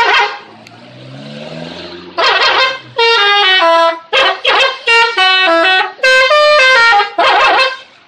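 Musical 'telolet' horn on a Daihatsu Sirion hatchback, playing a tune of short stepped notes, mostly falling in pitch, from about three seconds in. Loud noisy blasts come at the start and between the phrases.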